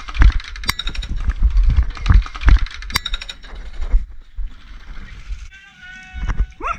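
Footsteps on dirt and rattling gear, with heavy buffeting on a head-mounted camera as the player moves, and two sharp snaps. A brief called-out voice rises near the end.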